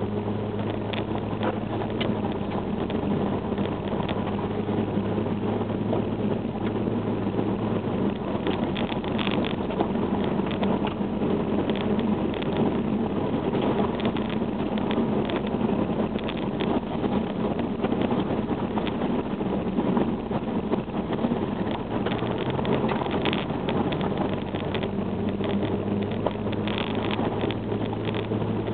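Compact SUV driving slowly over a rough dirt track, heard from inside the cabin: a steady engine hum with road rumble and frequent short knocks and rattles. The engine note wavers about eight seconds in and settles again past two-thirds of the way through.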